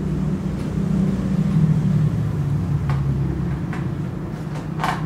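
A steady low hum, with a few short plastic-and-metal clicks and knocks toward the end as the chainsaw's plastic side cover is fitted over the guide bar and chain.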